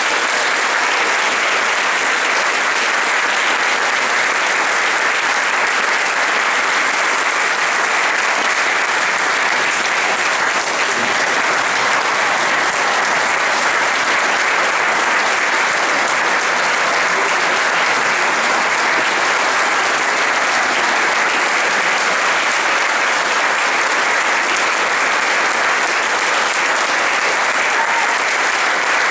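Audience applauding with dense, steady clapping, an ovation at the close of a choral performance, with choir members on stage joining in.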